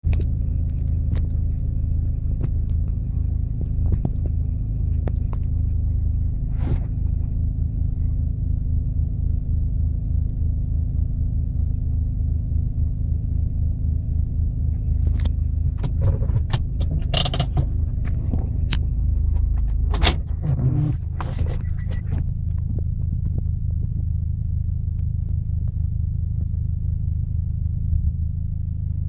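A 4x4's engine running low and steady at crawling speed, heard from inside the cab, with frequent rattles and clicks from the body and loose items as it rides over rough rocky ground. There is a cluster of sharper knocks and creaks in the middle, and the engine note changes about two-thirds of the way through.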